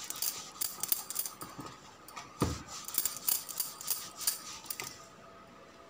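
Wooden rolling pin rolled back and forth over a slice of bread on a wooden chopping board, making a series of rasping, knocking strokes with one heavier thump about two and a half seconds in. It goes quieter near the end.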